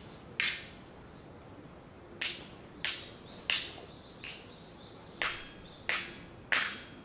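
A series of about eight sharp snapping clicks at irregular intervals, each dying away quickly, over a faint steady outdoor background.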